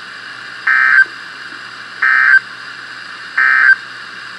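NOAA Weather Radio SAME end-of-message data bursts: three short, buzzy digital tone bursts about 1.4 seconds apart, marking the end of the alert. Faint steady radio hiss runs underneath.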